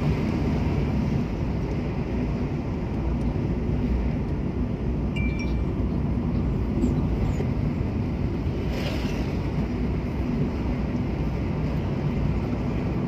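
Steady road and wind noise from a vehicle driving along a paved road, with a low engine hum underneath. A brief thin high tone sounds about five seconds in.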